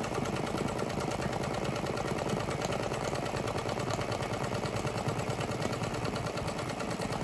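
Multi-needle embroidery machine stitching onto a cap in a cap frame: a steady, fast, even rhythm of the needle striking through the fabric.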